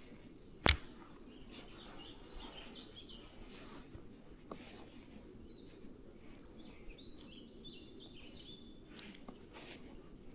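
Small birds chirping in short repeated phrases over a steady low background hiss, with one sharp click less than a second in.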